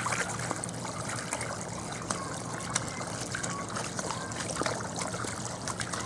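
Water running from a garden hose into a shallow plastic wading pool, with small irregular splashes as a dog bites at the stream and moves about in the water.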